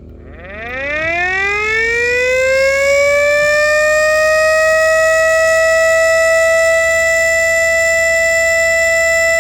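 3D-printed miniature E57 motor siren running on 12 V DC, spinning up from rest. Its tone rises steeply in pitch for about two seconds, then holds a steady, loud, high wail, pitched higher than a full-size E57.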